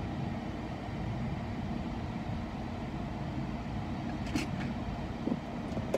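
Steady low rumble of a car, heard from inside the cabin, with a faint click about four seconds in.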